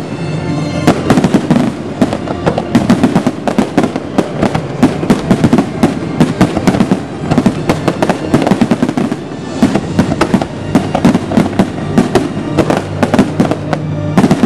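Fireworks display: a dense, continuous run of loud bangs and crackling reports in quick succession, with music playing alongside.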